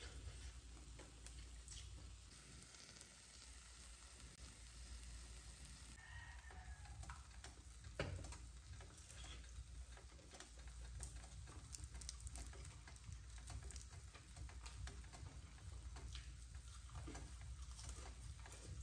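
Faint sizzling of tortilla quesadillas frying in a nonstick pan, with scattered small clicks and one louder tap about eight seconds in.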